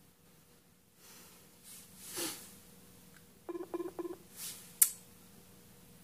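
A phone's electronic call tone: a quick run of short beeps about three and a half seconds in, while a Messenger call is still trying to connect. Two soft whooshes come before and after it.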